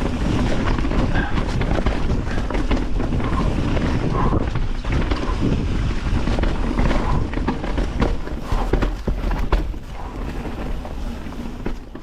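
Mountain bike clattering over a rough trail of roots and rocks: tyres, chain and frame rattling with many sharp knocks. A deep wind rumble on the microphone runs underneath.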